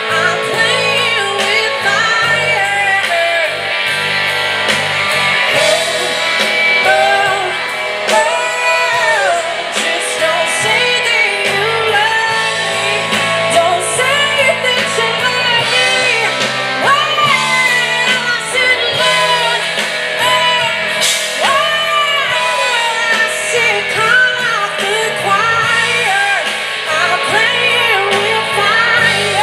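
Live blues-rock band playing electric guitar, bass guitar and drums, with a lead melody that bends up and down over a steady bass line.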